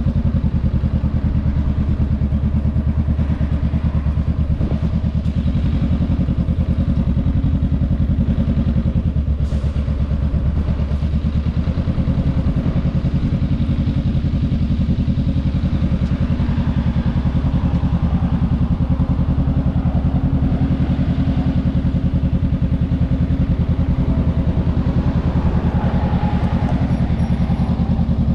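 Honda Rebel 500's 471 cc parallel-twin engine running steadily at low revs with an even pulsing beat, as the bike creeps along in low gear.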